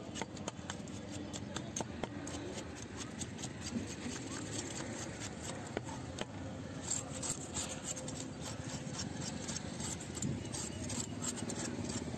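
Knife blade scraping the scales off a spotted scat on a wooden chopping block: a quick run of short, scratchy strokes, several a second.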